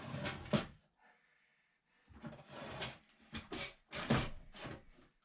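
Irregular knocks, clunks and scrapes from a heavy VW T3 gearbox being shifted by hand into place against the engine, in several short clusters.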